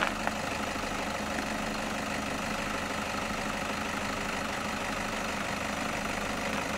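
Toyota Hilux pickup's engine running steadily at low revs as the truck crawls slowly downhill, with a couple of small clicks at the very start.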